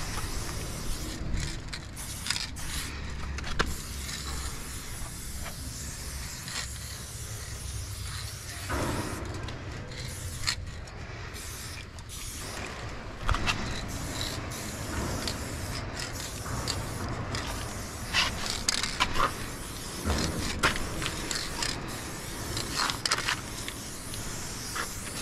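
Aerosol spray paint can hissing in short bursts as paint is sprayed onto corrugated metal, with the can and glove handling between bursts.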